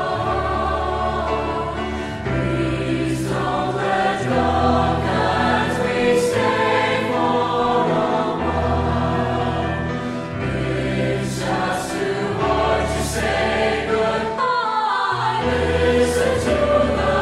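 A slow song sung by a choir, with deep bass notes that change about every two seconds.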